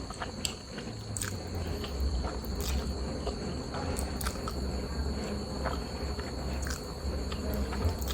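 Close-miked chewing of noodles and seaweed, with scattered small crunches and wet mouth clicks over a low rumble. A steady faint high tone runs underneath.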